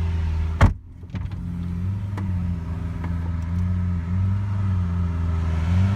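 A car engine idling, its low note wavering slightly in pitch, with a car door shutting in one loud thud about half a second in that briefly dulls the sound.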